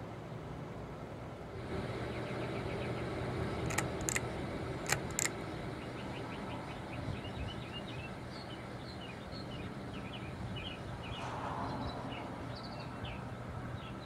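S.M.C. Laguna KB36 ceiling fan running with a steady hum. About four and five seconds in there are two pairs of sharp clicks, and small birds chirp repeatedly in the background.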